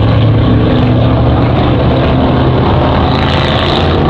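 Race car engine running loud and steady at speed.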